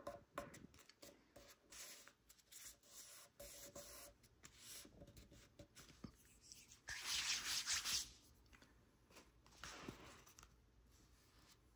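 Origami paper being handled and folded by hand: soft rustles and crinkles as it is creased, with a longer, louder rustle about seven seconds in.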